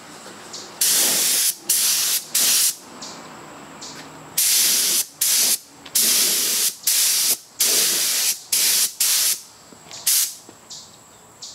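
Spray gun spraying lacquer in short hissing bursts, about a dozen trigger pulls of under a second each, with a pause of about a second and a half near the middle. This is a coat of lacquer going onto finished wood.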